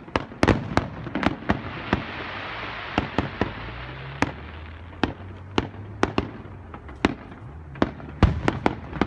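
Fireworks display: aerial shells bursting in a rapid, irregular string of sharp bangs, about two a second. A hiss swells and fades in the middle.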